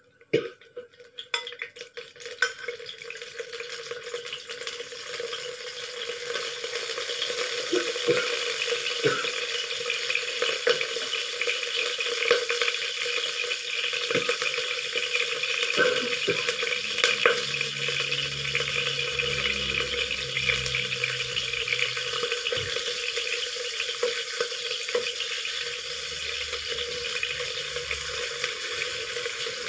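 Pieces of sun-dried tilapia frying in hot oil in a non-stick wok. The sizzle starts as the fish goes in, builds over the first few seconds, then holds steady. Scattered scrapes and taps of a metal spatula turning the fish sound over it.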